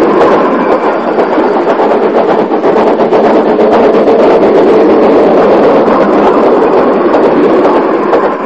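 Ex-North London Railway 0-6-0 tank engine working hard up a 1-in-14 adhesion incline with two wagons, its steam exhaust beating loudly and continuously, close to stalling.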